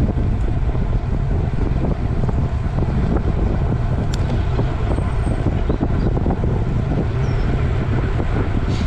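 Steady wind rushing over the microphone of a camera riding on a moving bicycle, with low road and tyre rumble from the asphalt. Two sharp clicks cut through, one about four seconds in and one near the end.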